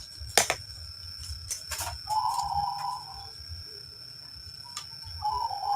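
A dove cooing twice, each coo about a second long, once about two seconds in and again near the end. A few sharp clicks and knocks come from handling the spring trap's parts.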